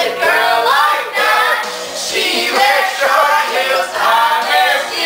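A woman singing along to music, with several voices joining in.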